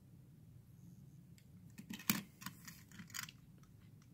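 Faint clicks and taps of a small 1/64 diecast toy car being handled and set down on a play mat. There is a quick cluster of them in the middle, the sharpest about two seconds in.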